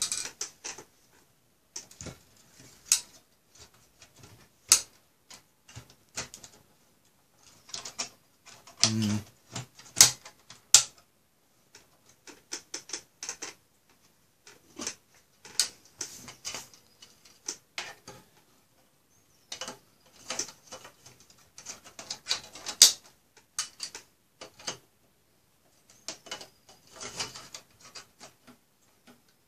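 Drive carriers being slid and clicked into the metal drive bays of an HP ProLiant Gen8 MicroServer: a scattered run of sharp clicks and clacks of plastic on metal, with short pauses between.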